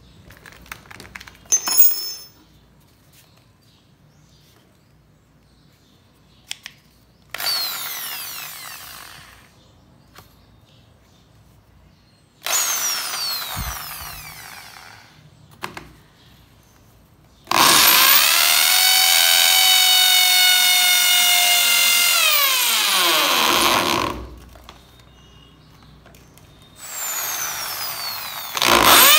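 Bosch GSB 501 500-watt corded impact drill, set to hammer mode, run in several bursts. Each burst winds down with a falling whine, and the longest runs steadily for about five seconds before it spins down. Near the end it starts again with the bit drilling into a clay brick; a few light clicks of the chuck key come about two seconds in.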